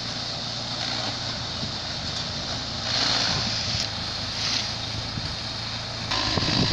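Tractor-driven maize-stalk chopper running steadily while dry stalks are fed through it, a low engine hum under a rushing, shredding noise. The chopping noise surges twice midway and grows louder near the end.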